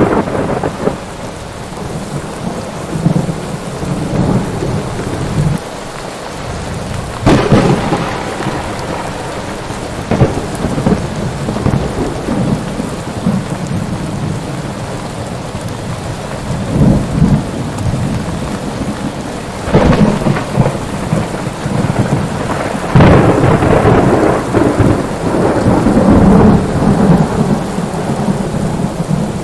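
Thunderstorm: steady heavy rain with rolling thunder, sharp cracks about seven seconds in, about twenty seconds in and again about three seconds later, the last opening into a long rumble.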